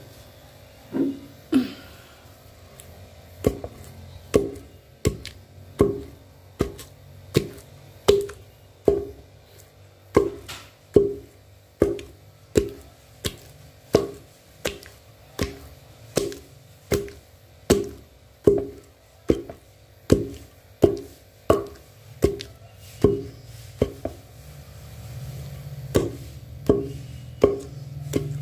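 Wooden pestle pounding palm sugar and grated coconut in a mortar: repeated dull thuds, each with a short ringing tone. The strokes are irregular at first, then settle into a steady beat of about three every two seconds.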